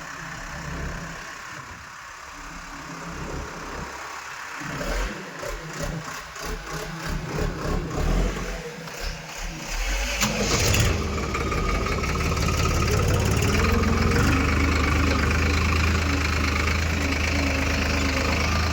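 Heavy machine's engine running unevenly at low revs, then picking up sharply about ten seconds in and running louder and steady.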